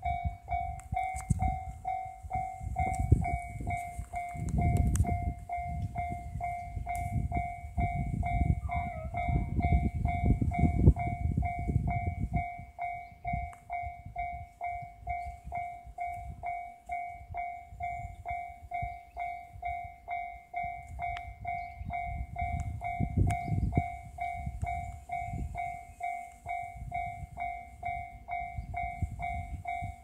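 Japanese railway level-crossing warning bell ringing, a steady electronic ding repeating about two to three times a second, over bouts of low rumble.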